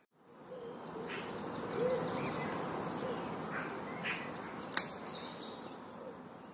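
Outdoor forest ambience with birds calling: several short, low hoot-like notes and a few higher chirps over a steady background hiss, with one sharp click about five seconds in.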